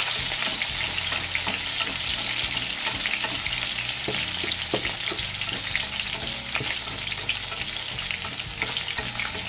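Split milkfish (bangus) frying uncovered in hot oil in a frying pan: a steady sizzle dotted with many small crackles and pops of spitting oil, as a spatula presses and nudges the fish.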